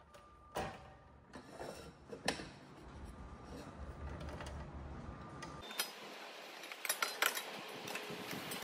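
Light metallic clinks and knocks of a cut aluminium tube being handled and repositioned on the bed of a mitre saw, with a quick run of sharp clicks about six to seven seconds in.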